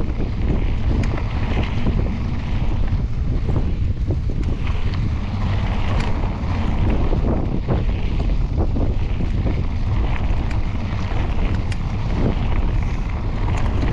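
Wind buffeting the camera microphone while riding a mountain bike, a steady heavy rumble, with scattered clicks and knocks throughout.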